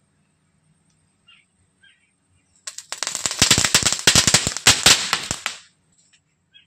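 Homemade crackling-star (dragon egg) composition going off: a dense run of rapid, sharp crackling pops, starting nearly three seconds in and lasting about three seconds before stopping.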